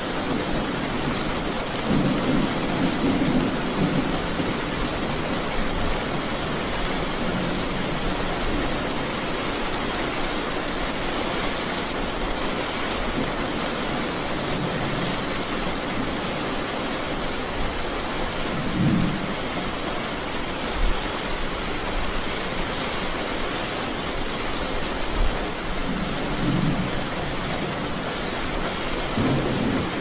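Steady rain falling, with several low rolls of thunder: the first about two seconds in, one past the middle, and two near the end.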